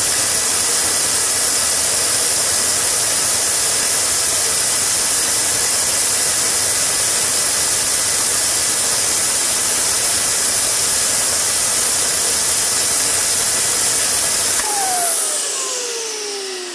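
Turbocharger-based DIY gas turbine jet engine running at speed: a loud, steady rushing hiss with a high whine. Near the end it shuts down, and the rush dies away while whistling tones fall in pitch as the rotor spins down.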